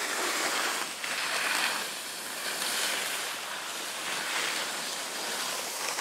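Skis scraping and hissing over hard-packed snow on turns, mixed with wind rushing over the microphone of a camera carried by a moving skier; the rush swells and eases every second or so.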